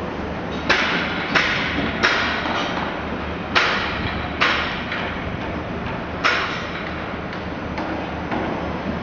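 A series of sharp metallic bangs at irregular intervals, like hammer blows on metal, each ringing briefly, over a steady low background rumble. Six loud ones come in the first two-thirds, with a few fainter ones after.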